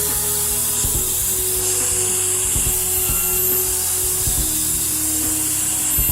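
Background music with held notes that change pitch over a regular low beat.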